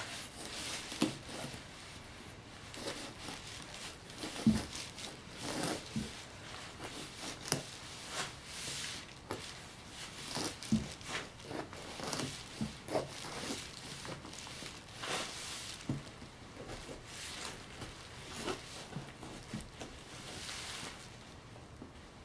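Knife cutting and sawing into the hard rind of a large parami fruit: irregular knocks, scrapes and rustling as the blade struggles to get through, with a few sharper knocks along the way.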